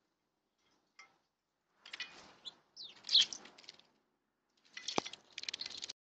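Small birds splashing and fluttering at a shallow metal water bowl in several short bursts, with a short falling chirp about three seconds in and a single sharp knock about five seconds in.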